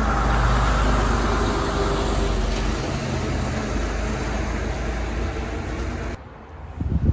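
Semi-truck tractor's diesel engine idling at close range, a steady low hum under a broad hiss, cutting off abruptly about six seconds in. A short, loud knock follows near the end.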